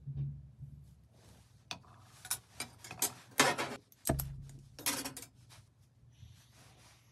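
A run of sharp clicks and knocks as soldering tweezers and a hand torch are handled on a metal bench, the loudest about three and a half seconds in and a low thud just after. Near the end a faint steady hiss of the torch flame.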